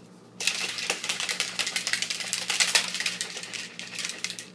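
Protein powder being mixed into water in a container, a fast run of rattling clicks that starts about half a second in and eases off near the end.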